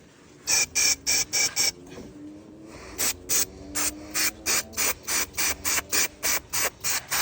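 Aerosol carburetor cleaner sprayed in short, sharp spurts into a lawn mower carburetor's jets and passages to clear gunk. There are five quick spurts, then a longer run of about three a second.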